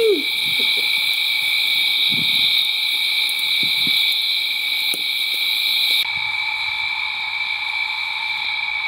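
Dusk chorus of bush insects: a steady, high-pitched shrill drone in two pitches. About six seconds in, the highest part drops away and a lower, steady drone joins.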